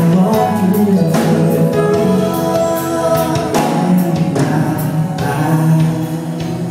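Live band music with a man singing into a microphone, heard through a phone recording in a concert hall.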